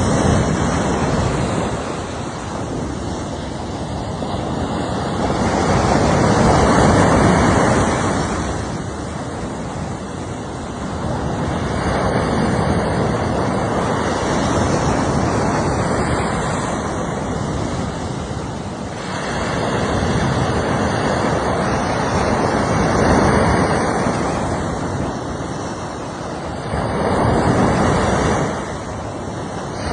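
Surf breaking on a shore: a rushing noise that swells and fades every several seconds.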